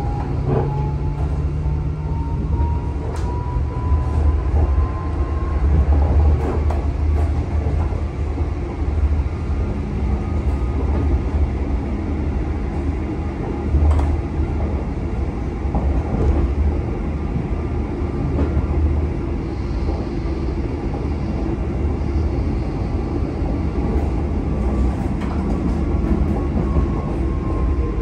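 Cabin ride noise of an Alstom Citadis X05 electric tram running along the track: a steady low rumble from the wheels on the rails with a few sharp clicks. A faint whine rises over the first few seconds and falls again near the end.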